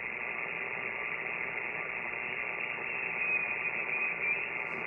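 Siemens CHR532 HF receiver's speaker giving out steady band hiss in single-sideband mode as it is tuned across the 40-metre ham band. A faint high whistle from a passing signal comes in about three seconds in.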